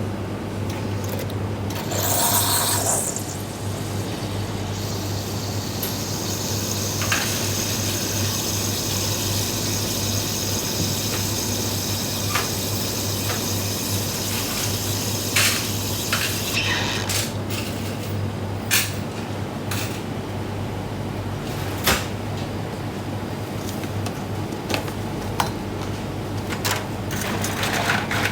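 A steady low hum runs underneath, with a high hiss for a stretch in the middle. Over it come scattered sharp clicks and a louder rustling burst about two seconds in.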